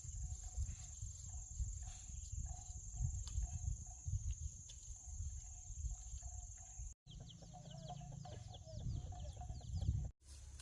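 Rural outdoor ambience: a steady high-pitched drone with low rumble on the microphone, then short animal chirps over the last few seconds.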